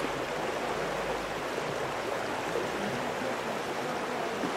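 Steady rushing of a stream, an even, unbroken water noise.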